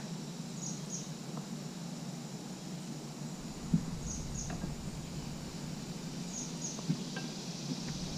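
Quiet outdoor ambience: a short, high double chirp repeats three times, about every two and a half seconds, over a steady low hum, with a sharp knock a little under four seconds in and a lighter one near seven seconds.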